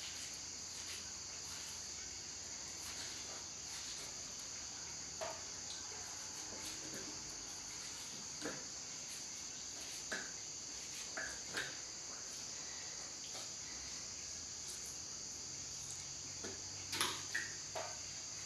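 Crickets chirring steadily at night, a continuous high-pitched drone, with a few scattered faint clicks and knocks, the loudest near the end.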